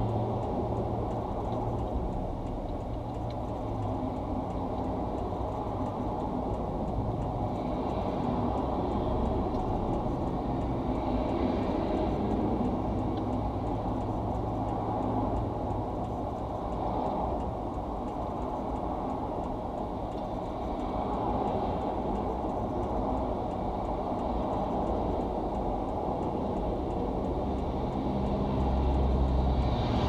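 Steady rumble of interstate highway traffic passing in dense, slow-moving lanes, heard from inside a car stopped on the shoulder; it swells a little near the end.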